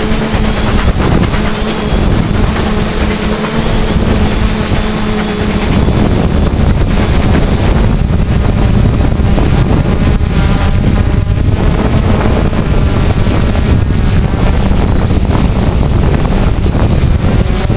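Multirotor drone's motors and propellers running, heard through the drone's own onboard camera: a loud steady hum with wind rushing on the microphone, its pitch wavering a little now and then.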